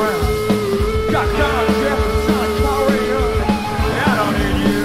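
Punk rock band playing: loud electric guitars and drums at a steady beat, with one long held note under sliding, bending lead lines.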